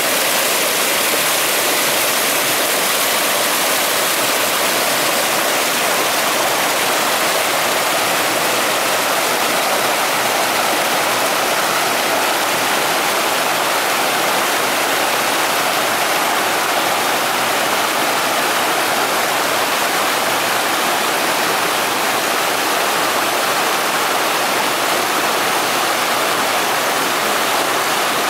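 Rushing water of a rocky stream's small waterfall and cascades, a loud, steady, unbroken rush.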